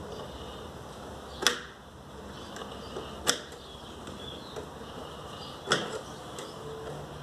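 Three short, sharp clicks or knocks about two seconds apart over a faint steady background: parts and hand tools being handled while working in a car's engine bay.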